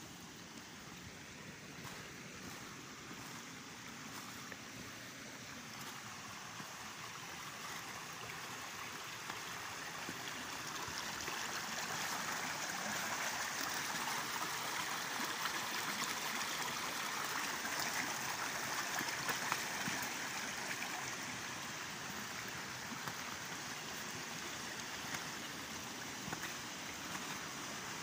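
Small rocky creek running over stones: a steady rush of water that grows louder about a third of the way through and eases slightly near the end.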